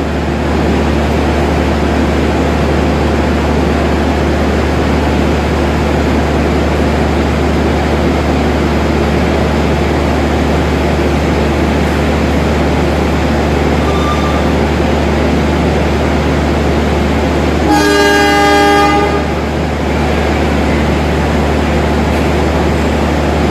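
A diesel-hauled parcel train runs steadily with a deep low hum from its locomotive. About 18 s in, the locomotive's horn sounds once for about a second and a half, the signal that the train is departing.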